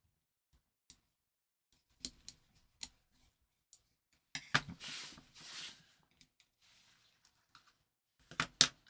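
Small clicks and scrapes of a screwdriver and wire being worked into the screw terminal block of a small relay circuit board, with scattered ticks, a stretch of rustling handling about halfway through, and a few sharper clicks near the end.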